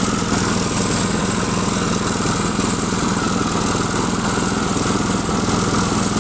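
The 6.5 hp single-cylinder engine of a Breckner wood chipper running steadily at an even speed.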